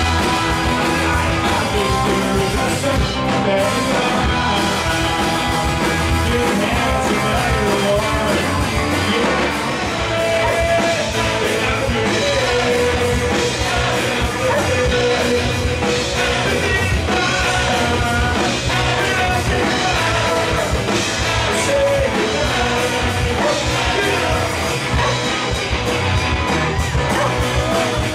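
A live rock band playing: electric guitar and drum kit with a male voice singing over them.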